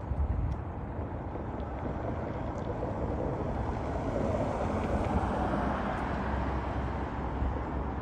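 Road traffic noise with a vehicle passing on the street, swelling through the middle and then easing.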